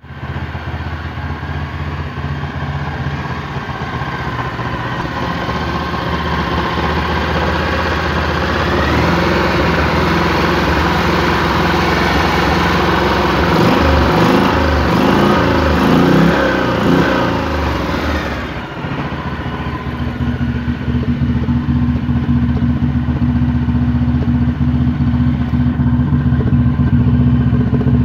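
ZS Power Pro Equip 620GB 20 hp engine running. About nine seconds in, its speed rises and it runs faster and louder for roughly ten seconds, then drops back to a steady idle, with a steady hum alongside.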